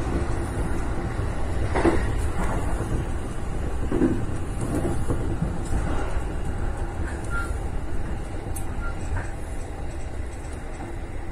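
Electric commuter train heard from the driver's cab, running with a steady low rumble and a few knocks from the track. The sound gradually gets quieter as the train slows into a station platform.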